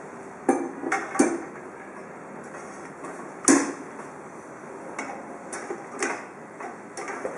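Sharp clicks and knocks of display-stand parts being fitted together on the upright pole: three close together near the start, the loudest about three and a half seconds in, then a run of lighter clicks in the second half.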